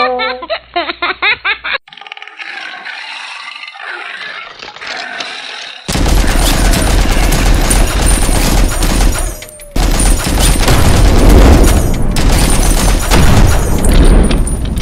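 Sound-effect gunfire: after a quieter start, loud rapid gunfire and blasts begin about six seconds in, break off briefly about ten seconds in, then continue.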